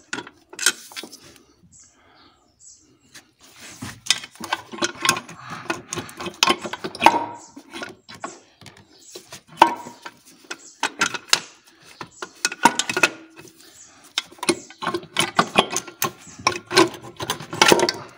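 Cast aluminium intake manifold of a 1.9 MultiJet 16v diesel being worked loose and lifted out of the engine bay: irregular metallic knocks, clinks and scrapes against the surrounding parts, with a few short rings.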